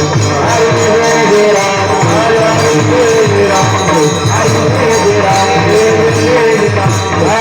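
Panchapadi bhajan music: a held melody that bends in pitch, over a steady, repeating hand-drum beat and jingling hand cymbals.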